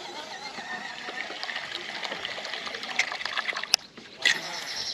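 Water trickling and splashing close by, with a few sharp clicks, and a short loud splash a little after four seconds.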